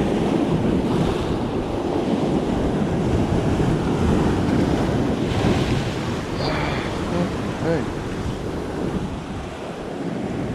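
Rough surf breaking and washing over shoreline rocks, with strong wind buffeting the microphone, as a storm comes in.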